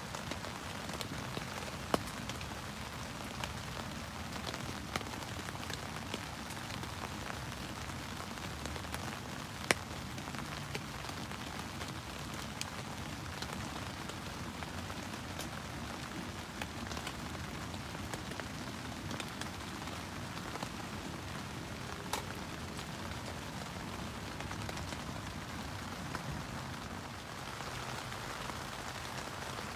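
Steady rain pattering on the fabric of a Luxe Twinpeak tent, heard from inside, with scattered small ticks and a few sharper single taps, the loudest about ten seconds in.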